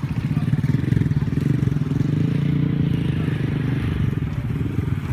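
An engine running steadily at low speed, with a fast, even pulse.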